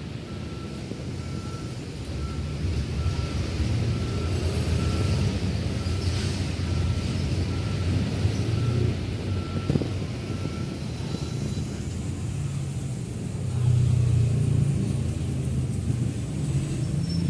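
A vehicle's reversing alarm beeping at an even pace, a little more than once a second, over the low running of a truck engine. The beeps fade out about two-thirds of the way through, and the engine grows louder near the end.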